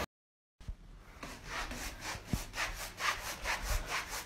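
Rhythmic rasping rubs, about three strokes a second, starting after a short silence about half a second in.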